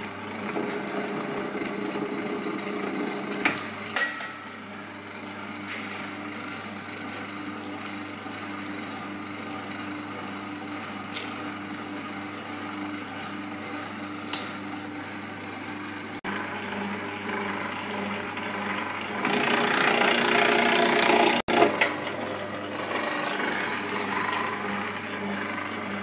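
Enerpat CWS40G cable stripping machine running, its 750 W single-phase motor and gear reducer humming steadily as insulated wire is fed through its blades. A couple of sharp clicks come about four seconds in, and there is a louder burst of noise about twenty seconds in.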